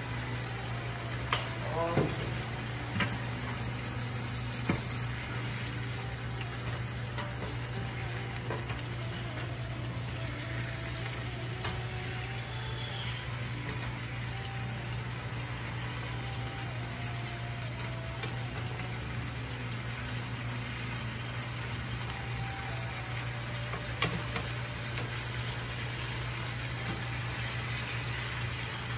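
Fish, onions and green peppers sizzling steadily in a frying pan, under a steady low hum. A few sharp knocks of a utensil against the pan come in the first five seconds and once more near the end.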